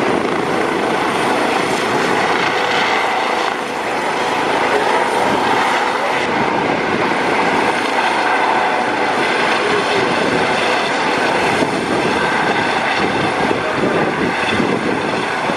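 Helicopter running at full power as it lifts off the pad and hovers. Its rotor and turbine noise holds steady and loud, with a thin high whine over it.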